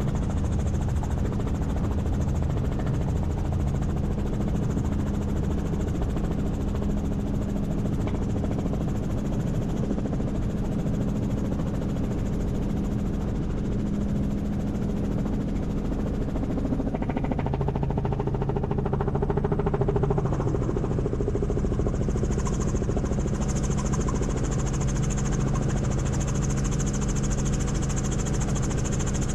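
Helicopter engine and rotor running with a steady drone. About two thirds of the way through, the drone shifts to a lower pitch.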